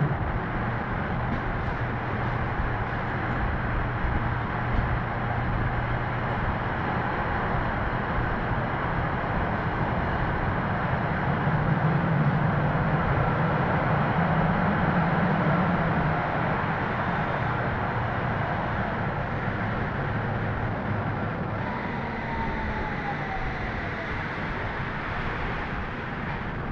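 Tram running along its tracks, heard from inside the front of the car: a steady rumble of wheels on rails and the drive, swelling a little in the middle, with a faint falling whine about three-quarters through.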